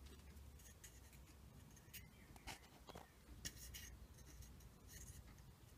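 Near silence, with faint scattered scraping and ticking from hands handling and rotating a wooden workpiece held in the lathe chuck.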